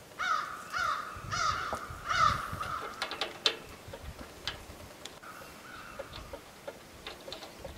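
A bird calling four times in quick succession within about two seconds, then once more, fainter, a little later. A few light sharp clicks come in between.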